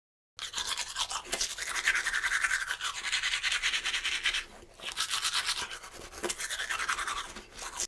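Teeth being brushed with a toothbrush: quick, scratchy scrubbing strokes that break off briefly about halfway through and then start again.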